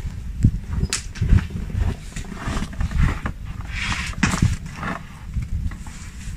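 Footsteps in snow as a person walks up to a table, then handling sounds, over a steady low rumble.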